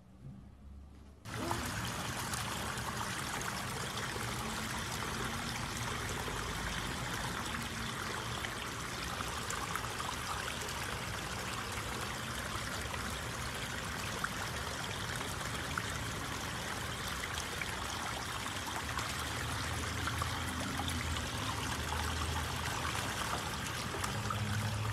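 Water running steadily over the rocks of a small stone waterfall into a garden pond, starting about a second in.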